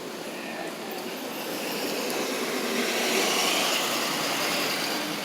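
Traffic noise as a vehicle passes: a steady rushing that swells about two seconds in, is loudest around the middle and eases off again.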